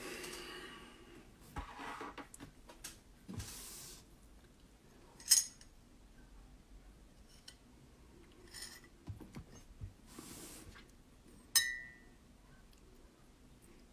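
A ceramic mug knocking on a desk: a sharp clink about five seconds in, then a louder clink with a short ring near the end as it is set down.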